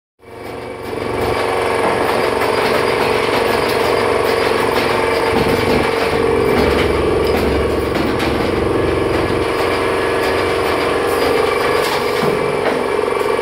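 Wire spot welding machine for wall hangers running: a steady mechanical buzz over a dense rattling din, with a few sharp clicks near the end.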